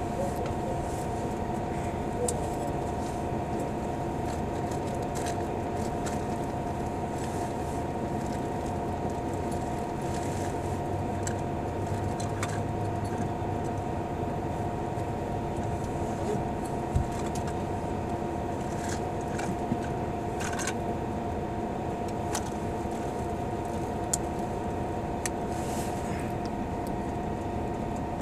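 Steady cabin hum of a parked highway bus, with a constant mid-pitched whine over it and a few light clicks and rattles.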